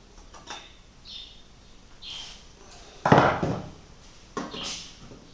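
Intermittent light clunks, clicks and rustles of tools and mounting parts being handled, with the loudest knock about three seconds in.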